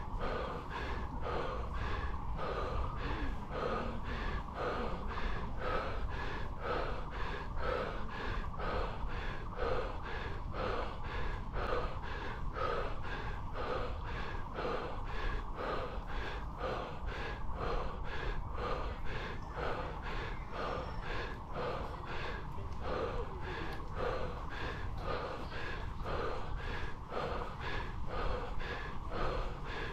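A cyclist panting hard and fast on a steep climb, about two breaths a second, winded almost to the point of an asthma attack, over a steady low rumble.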